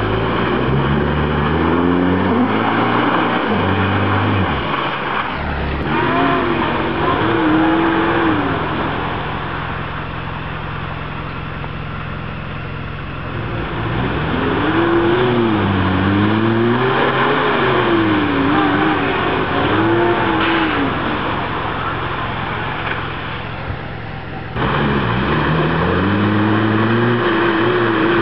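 Toyota four-wheel-drive engines revving up and down repeatedly as the trucks crawl through deep mud ruts, with mud and water splashing under the tyres. There is a quieter stretch midway.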